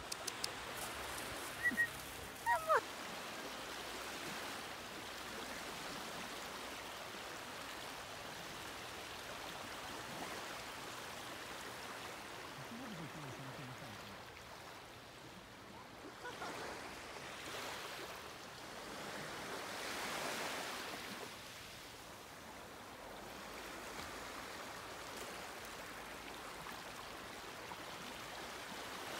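Gentle sea waves lapping and washing on a pebble and rock shore, a soft steady wash that swells and ebbs. Two short high chirps stand out about two seconds in.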